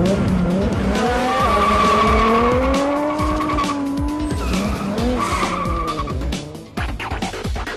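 Tuned Toyota Supra MkIV engine revving hard as the car pulls away, its pitch climbing and falling, with tyres squealing in stretches. Music plays underneath, and the sound dips briefly about seven seconds in.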